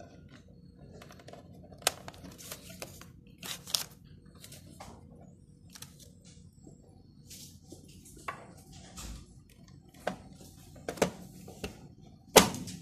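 Paper label stock rustling and plastic clicking as a label roll is threaded through the media guides of a GoDEX DT2x label printer, then a loud snap near the end as the printer's plastic lid is pressed shut.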